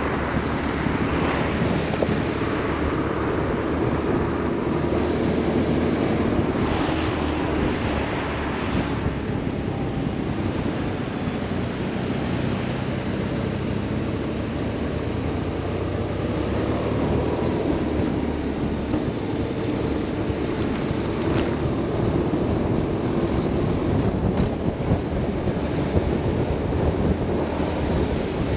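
BMW R 1150 RS boxer-twin engine running on the move, its pitch rising and falling gently with the throttle, under a steady rush of wind on the microphone.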